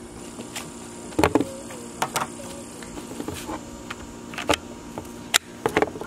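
Hands changing the bit in a DeWalt 20V cordless drill: scattered clicks and knocks from the keyless chuck and the tool being handled and set down, over a steady low hum.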